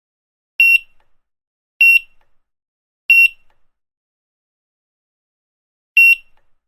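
Grocery checkout barcode scanner beeping: four short beeps at one high pitch. The first three come about a second apart, then a pause of about three seconds before the fourth.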